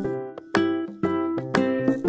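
Background music of plucked-string notes, about two a second.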